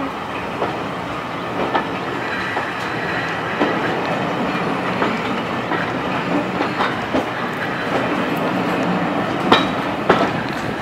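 Heritage railway carriage wheels rolling over rail joints and points, a steady rumble broken by irregular clicks and clacks, with one sharper clack about nine and a half seconds in.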